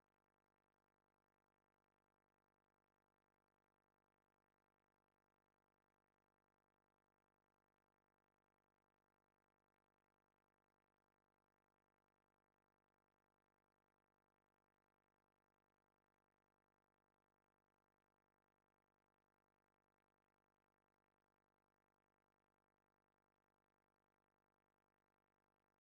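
Near silence: the sound track is essentially empty.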